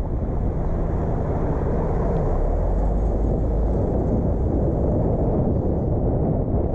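Steady low rumble of road and wind noise from a car being driven, growing heavier at the bottom for a couple of seconds around the middle.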